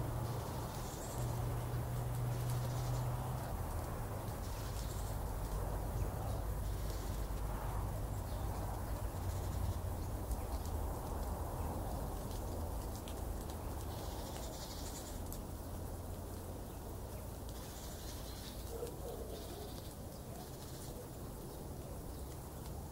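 Outdoor ambience: a steady low rumble with a few short, faint bird calls scattered through it.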